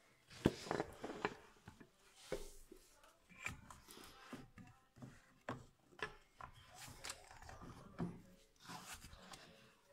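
Irregular clicks, knocks and rubbing of hand tools and parts being handled during engine repair work, with the loudest knock about half a second in.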